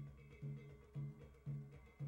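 Music played on an acoustic guitar, with a low, steady beat about twice a second.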